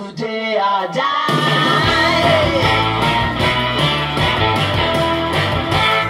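Rock and roll song with a singing voice and guitar, played back through small early-1980s Tesla two-way bookshelf speakers and heard in the room. The bass and full band come in about a second in.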